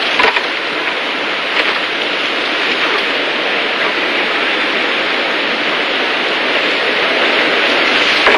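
Arena crowd applauding, a dense steady wash of clapping that slowly grows louder.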